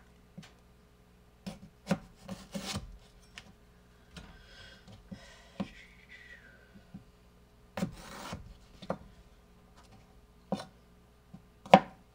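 Kitchen knife cutting a raw potato into wedges on a plastic cutting board: irregular knocks of the blade against the board and a few longer scraping strokes through the potato, the loudest knock near the end.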